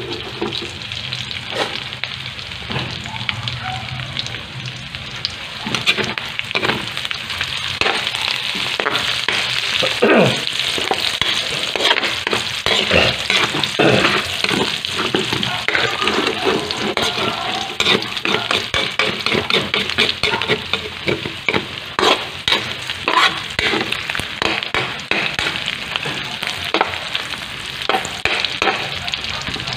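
Onion, garlic and ginger sizzling in hot oil in a metal wok, stirred with a metal spoon that scrapes and clinks against the pan many times.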